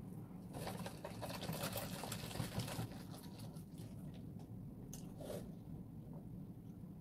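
Close-miked mouth chewing of a bite of Hong Kong egg waffle, a dense crackly run of small clicks in the first three seconds, then two short clicks about five seconds in.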